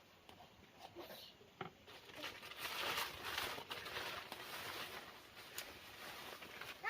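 Irregular rustling and crinkling, with a few soft clicks, growing busier about two seconds in.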